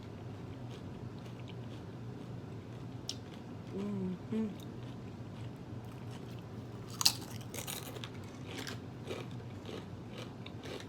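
A person chewing food close to the microphone, with soft wet mouth sounds and one sharp crunchy bite about seven seconds in, followed by smaller crunches.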